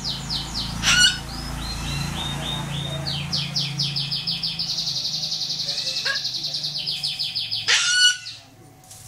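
White cockatoos calling: two short, loud, harsh screeches, about a second in and again near the end, with a fast, steady run of high-pitched chirps in between.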